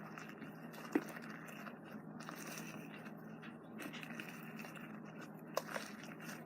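Fluffy slime being worked in a bowl: faint scraping and squishing, with a few light clicks about a second in and again near the end.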